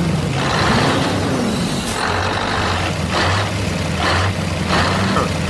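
Truck engine sound running steadily, with several short bursts of air hiss.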